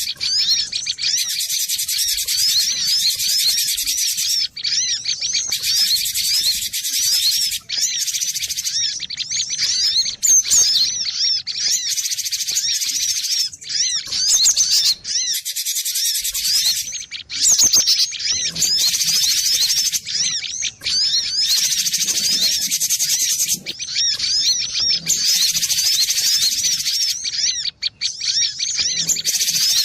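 Cinereous tit (glatik batu) singing: a rapid, nearly continuous string of high chirping notes with only brief pauses.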